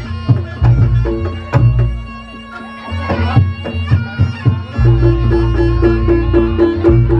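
Reog Ponorogo gamelan accompaniment: a reedy slompret shawm playing a sustained melody over kendang drum beats and gong and kenong strikes. The playing thins briefly about two seconds in, then picks up again.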